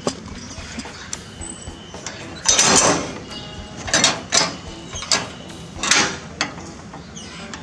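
Wooden gate on a metal frame being handled and pushed open: a series of about six short scraping, rattling bursts, the first and longest about two and a half seconds in.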